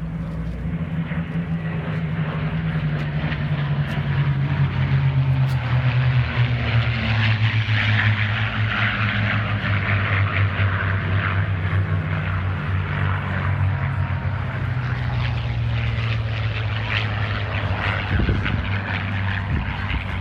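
Packard-built Merlin V-12 engines of a formation of P-51 Mustangs flying past: a deep, steady drone that grows louder and drops in pitch as the fighters pass, then carries on lower.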